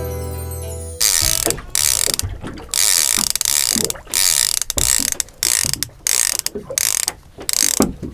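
Big-game multiplier fishing reel's ratchet clicking in repeated bursts with short pauses, as line is worked on the reel while rigging a shark rod. A ringing guitar chord fades out about a second in.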